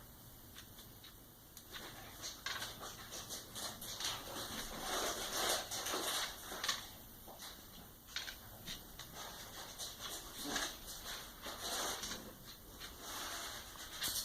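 A dog making faint, irregular noises that come and go.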